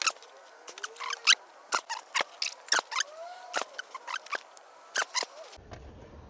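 Wrench ratchet clicking in short irregular runs as an engine head bolt is turned through its final 90-degree angle-tightening step, with faint metallic squeaks. The clicking stops about five and a half seconds in.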